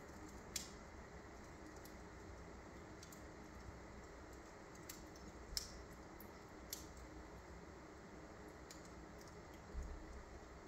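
Wood fire burning low in a fireplace: faint, scattered crackles and pops from the embers, the sharpest about half a second in and again midway, with a soft low thump near the end.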